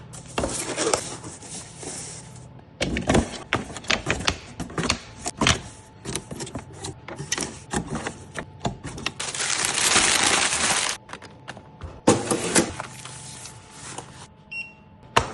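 Small 3D-printed plastic latches clicking and rattling as they are handled and packed. There are many quick knocks and clatters, and a steady hissing noise lasting about a second and a half near the middle.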